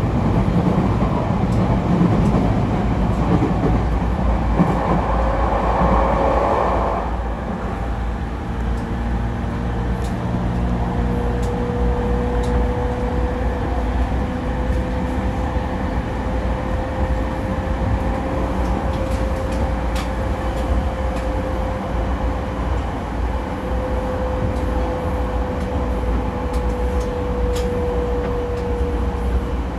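Running sound of a JR East E231-series 0-number motor car (MoHa E230) with a Mitsubishi IGBT-VVVF inverter, heard inside the car at speed: a steady rumble of wheels on rail. After about seven seconds a louder rushing noise drops away and a steady whine holds on.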